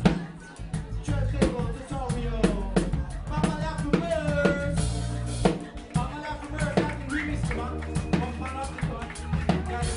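Live band playing: a drum kit keeping a steady beat under held bass notes, with a voice singing through a microphone over it.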